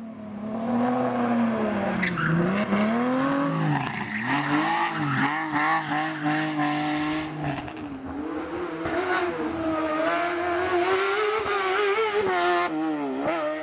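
Race car engine revving hard, its pitch repeatedly climbing under acceleration and dropping at shifts and lifts.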